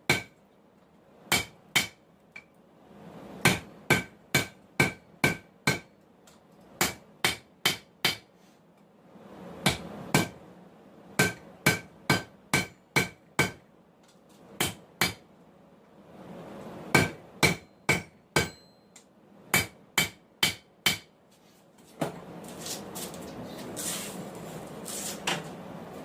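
Hammer blows on hot steel over an anvil, coming in bursts of two to seven quick strikes with pauses between, each blow ringing. About 22 seconds in the hammering stops and a steady rustling noise takes over.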